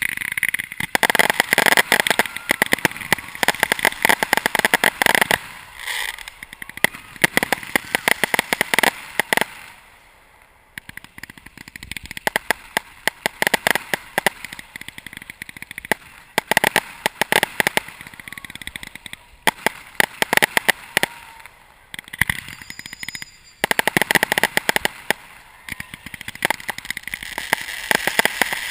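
Professional fireworks display heard up close from the firing site: waves of rapid sharp cracks and bangs, many in quick succession, with short lulls about ten seconds in and again about two-thirds of the way through.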